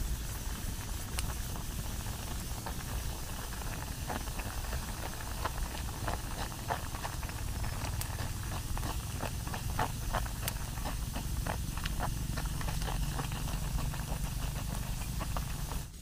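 Steady low rumble of wind on the microphone, with scattered crackling ticks that grow thicker through the middle.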